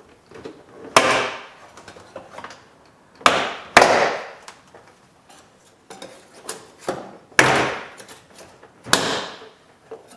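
Plastic retaining clips of a Lincoln Town Car's door trim panel snapping loose as the panel is pried off with a putty knife: about five sharp pops, each trailing off in a short rattle, with lighter clicks and scrapes between them.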